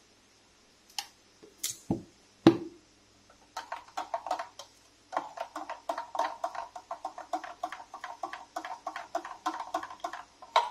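A few sharp knocks as formula powder is spooned out and the can is closed, the loudest about two and a half seconds in. Then a spoon stirs milk formula in a measuring jug, clinking against its sides about five times a second.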